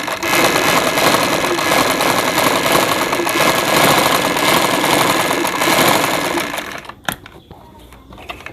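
Classic black straight-stitch sewing machine running a fast test seam after its bobbin-case tension screw has been tightened; it stops about seven seconds in, followed by a single sharp click.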